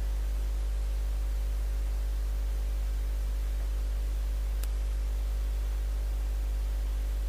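Steady electrical mains hum with its stack of overtones over a light hiss, unchanging throughout; a single faint tick about four and a half seconds in.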